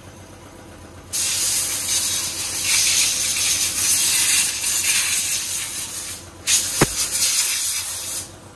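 Compressed air hissing from a workshop air blow gun in two long blasts, the first about five seconds, the second shorter. A single sharp knock comes just before the second blast.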